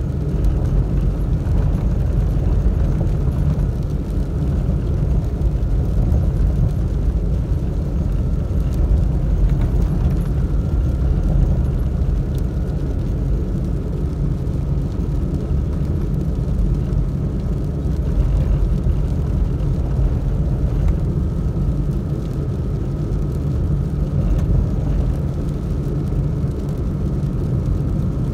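Steady in-cab driving noise of a Toyota Tacoma on 35-inch mud-terrain tyres, cruising on a dirt road. A constant low rumble of engine and tyres is heard, with a faint steady high whine over it.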